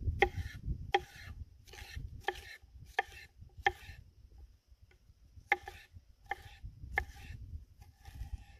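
Kitchen knife slicing a yellow bell pepper into strips on a wooden cutting board, each cut ending in a sharp knock of the blade on the board. The cuts come in an even rhythm, about one every two-thirds of a second, with a pause of a little over a second about four seconds in.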